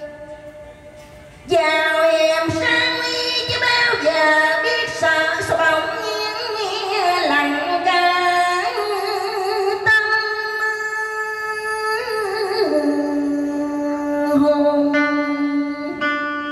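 A woman singing a cải lương excerpt in the đờn ca tài tử style, with long held notes and sliding ornaments, over string-instrument accompaniment. A held note fades out at the start, and the singing comes back in loudly after about a second and a half.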